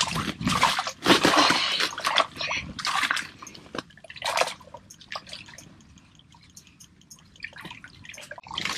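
A lake trout flopping on wet, slushy ice beside the fishing hole, slapping and splashing in irregular bursts. The bursts are thickest in the first three seconds, come again about four and a half seconds in, quieten, and pick up near the end.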